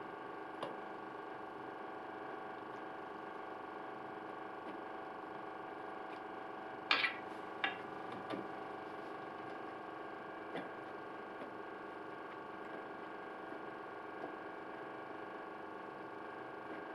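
Fish cutlets being dredged in flour in an enamel tray: soft handling with a few light clicks and two sharper knocks about seven seconds in, over a steady hum.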